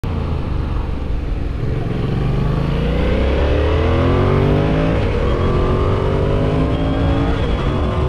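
Yamaha MT-07's parallel-twin engine pulling under hard acceleration. Its pitch rises through a gear, drops at an upshift about five seconds in, then climbs again towards another shift near the end.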